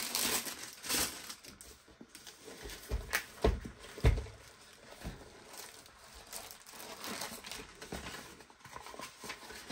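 Plastic wrapping and paper crinkling and rustling as a rolled diamond painting canvas is handled and unrolled, with a few knocks about one, three and a half, and four seconds in.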